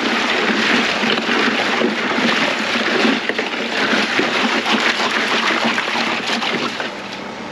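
A hand stirring ice water in a plastic cooler: water sloshing and splashing, with chunks of ice knocking together, as salt is mixed in to make an ice brine. It eases off near the end.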